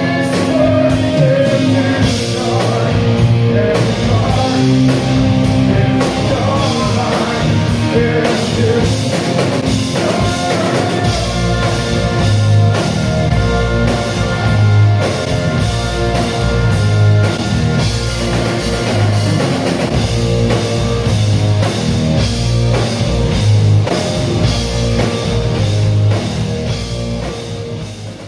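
Live blues-rock band playing: electric guitars, bass guitar and drum kit, with a pulsing bass line. The music fades out near the end.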